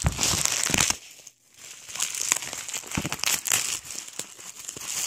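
Plastic bubble-wrap packaging crinkling and crackling as it is handled and pulled open around a DVD, with a short pause about a second and a half in before the crinkling resumes.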